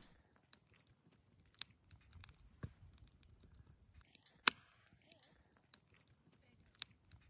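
Wood campfire crackling, with sharp pops at irregular intervals and one louder pop near the middle.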